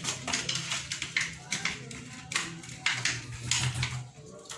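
Scissors being worked into a small piece to pierce a hole: irregular scrapes and taps, about seven strokes, fading out near the end.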